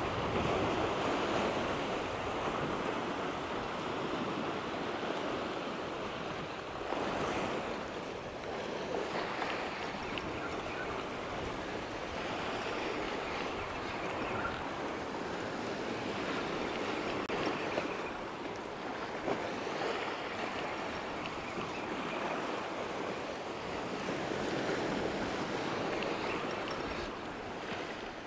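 Sea waves breaking and washing over rocks along the shore, the wash swelling and easing every few seconds.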